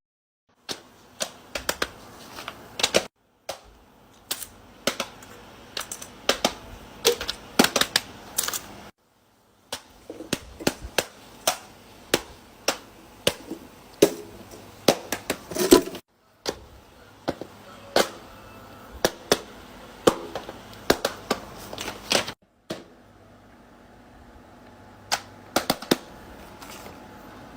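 Fidget toys being clicked and popped by hand: a run of sharp, irregular clicks, broken by a few sudden silences.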